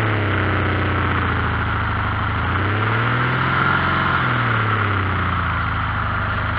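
Air-cooled Volkswagen flat-four engine of a dune buggy running while driving: the revs drop, climb and fall again about three to five seconds in, then settle low.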